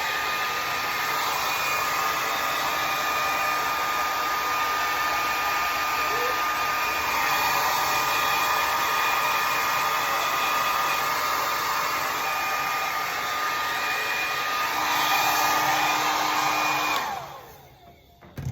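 Conair mid-size blow dryer running steadily, a rush of air with a steady motor whine; about 17 seconds in it is switched off and spins down, followed by a short click.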